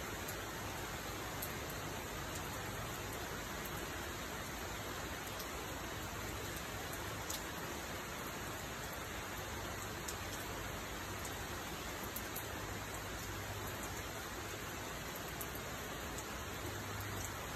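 Steady rain falling, with scattered sharp taps of drops hitting the fabric patio umbrella overhead.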